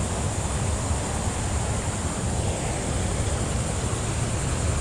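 Steady rush of water pouring over a small waterfall, with wind on the microphone.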